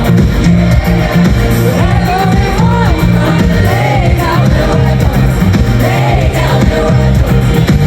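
Live pop band playing with a lead singer, loud and steady over a pulsing bass, recorded from within the concert crowd.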